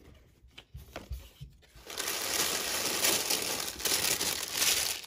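Tissue wrapping paper in a shoe box being handled and pulled out, with a few light taps at first, then steady crinkling and crumpling from about two seconds in.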